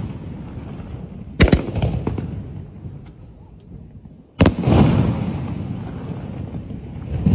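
Fireworks going off: two sharp bangs about three seconds apart, each trailing off in a long rumbling echo, with a deeper boom starting near the end.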